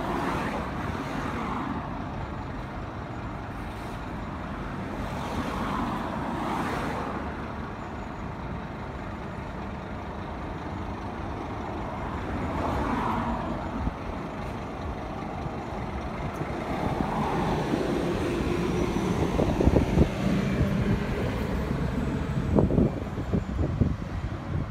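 Diesel engine of a Scania fire engine running as it pulls out and drives off, mixed with road traffic. The noise grows louder over the last few seconds as vehicles pass close.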